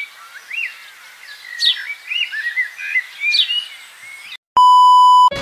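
Birdsong: a bird repeats a quick falling whistle about every second and a half among softer chirps, then cuts off about four seconds in. After a short gap comes a loud, steady electronic beep lasting under a second.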